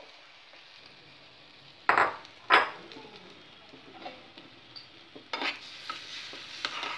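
Beaten eggs poured into hot oil with sautéed shallots in a small pan, sizzling softly. Two sharp metal clinks against the pan about two seconds in, then a spoon stirring and scraping in the pan as the sizzle gets louder near the end.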